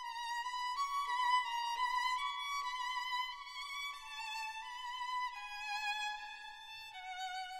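Background music: a solo violin playing a slow legato melody with vibrato, stepping between held notes and moving lower near the end.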